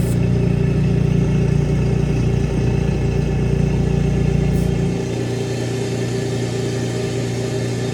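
Eastwood scroll air compressor running with a steady hum, just after switch-on. Its low rumble eases a little about five seconds in.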